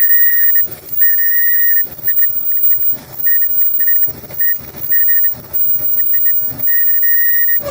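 Front-load clothes dryer running with a high-pitched squeal that comes and goes about once a second. The owner puts it down to worn front drum sliders.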